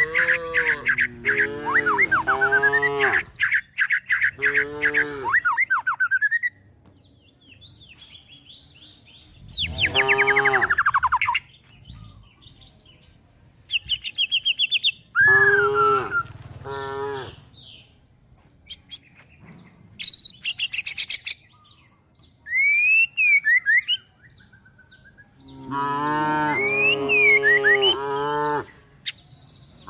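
Cattle and calves calling in groups of short, repeated calls, with birds chirping and whistling in the quieter gaps between them.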